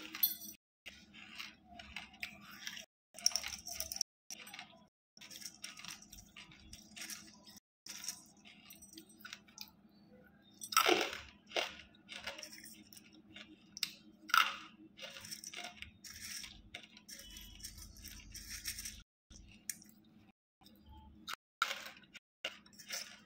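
Crunching and chewing of hard, chalky pieces of banslochan (tabasheer, bamboo silica), bite after bite at an uneven pace, the loudest crunches about eleven and fourteen seconds in.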